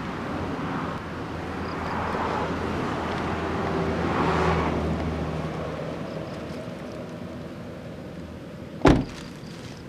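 Car engine running with road and traffic noise that swells twice and then fades. A single sharp thump about nine seconds in.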